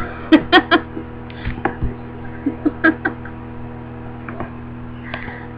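Short squeaky voice sounds from a person, in quick bursts: three close together at the start, a few more a second or two later, and a faint one near the end.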